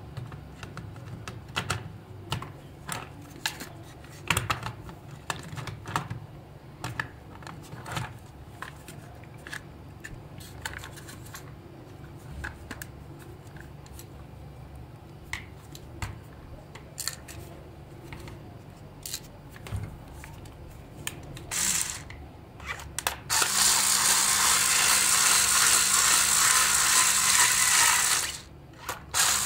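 Light plastic clicks and knocks as a toy car's plastic body and chassis are handled and turned over. From about 23 seconds in, a small electric screwdriver whirs steadily on the chassis screws, stopping briefly near the end before starting again.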